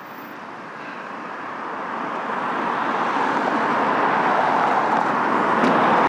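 A car approaching along the road and passing close by, its tyre and engine noise growing steadily louder as it nears, then cutting off suddenly.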